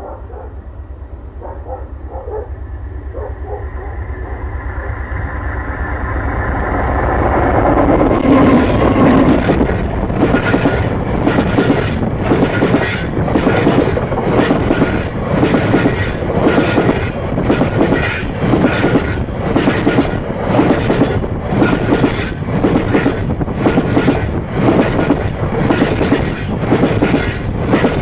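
A Class 60 diesel-hauled train of coal hopper wagons passing directly over a camera set between the rails. The rumble and rail hum grow louder over about eight seconds to a loud peak, then the wagons' wheels roll overhead in a steady clatter of about one and a half beats a second.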